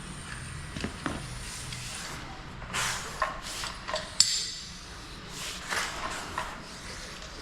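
Scattered light clicks, taps and scrapes of hand tools being handled, with one sharp metallic click that rings briefly about four seconds in.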